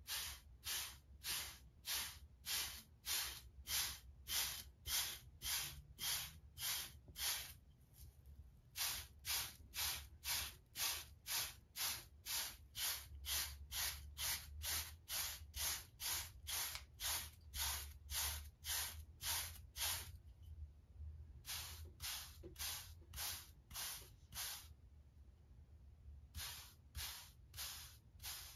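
Hard seven-row wave brush stroking through short waved hair: a steady run of quick, even, bristly swishes, a little over two a second, with a few short breaks.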